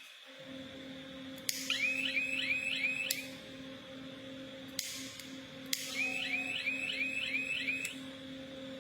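Homemade electronic fire alarm going off in two bursts of rapid warbling chirps, about three a second, each burst lasting about two seconds. A steady low hum runs underneath.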